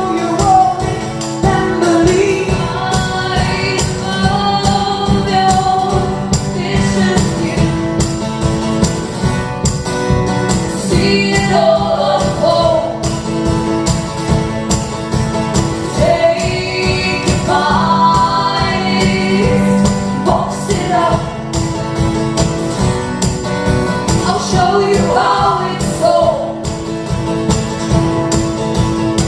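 Live band music: singing over a pitched backing, with tambourine keeping a steady beat.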